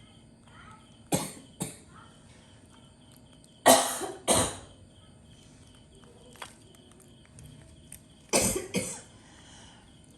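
Coughing: three bouts of two short, harsh coughs each, spread through the stretch, the last pair near the end.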